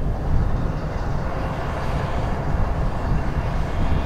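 Two BNSF diesel locomotives idling while stopped: a steady low rumble with a faint hum above it.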